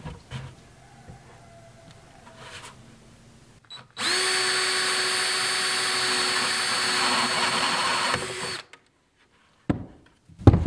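DeWalt cordless drill with a half-inch spade bit boring a hole through the wall of a plastic 5-gallon bucket: a steady whine at constant pitch that starts about four seconds in, lasts about four and a half seconds and stops abruptly. Faint handling of the bucket comes before it.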